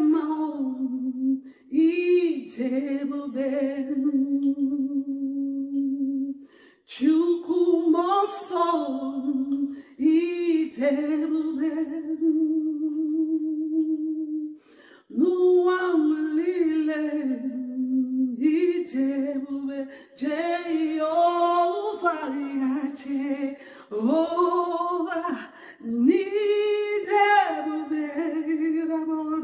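A woman singing a worship song unaccompanied, in long held phrases broken by short pauses for breath.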